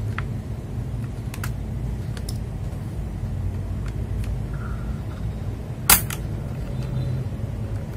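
Keycaps being pulled off and pressed onto an FL Esports MK870 mechanical keyboard with a keycap puller: a handful of sharp, scattered plastic clicks, the loudest about six seconds in, over a low steady hum.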